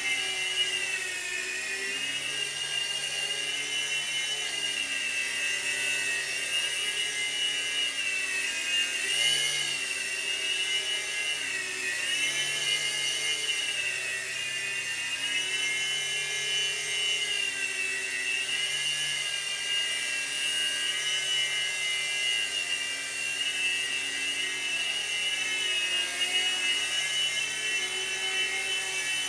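Revell Rotobot three-channel micro RC helicopter flying: a steady high whine of its small electric motors and whirring rotors, the pitch wavering gently up and down.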